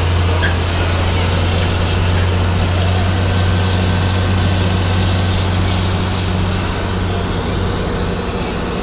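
Parking-lot tram's engine running steadily under way, a constant low drone heard from on board.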